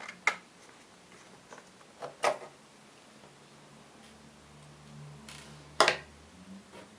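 Three sharp clicks, right at the start, about two seconds in and near the end, of small screws and a screwdriver being handled while the bottom-case screws of a MacBook Pro are taken out.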